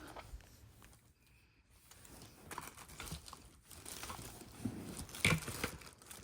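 Soft crinkling and rustling of packaging being handled, with scattered small clicks and one sharper click about five seconds in.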